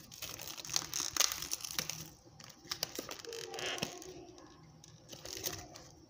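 Plastic wrapping on a tray of oranges crinkling and crackling as a hand handles it. The crinkling comes in spells: through most of the first two seconds, again around the middle, and briefly near the end.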